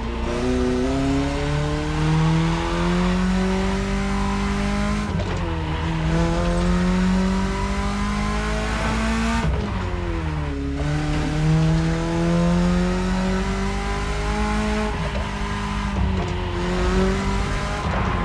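BMW E30 engine pulling under acceleration, its pitch climbing steadily through each gear and dropping back at gear changes about 5, 10 and 16 seconds in.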